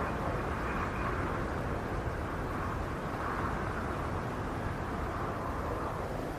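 Howling snowstorm wind: a steady rushing noise with a low rumble underneath, gently swelling and easing.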